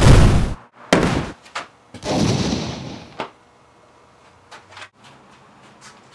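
Two loud bangs in the first second and a half, then a heavier crash about two seconds in that dies away over a second. A few faint clicks follow near the end.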